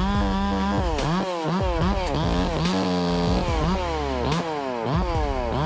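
Chainsaw engine revving up and down again and again, its pitch rising and falling in quick repeated surges.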